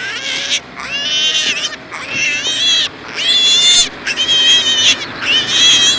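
Piglets squealing: a run of high-pitched squeals, each under a second long, coming about once a second.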